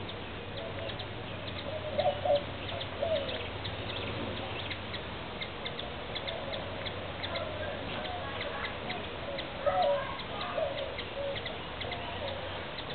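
Bird calls: a scatter of short high chips, with a few brief, louder, lower calls about two seconds in and again near ten seconds.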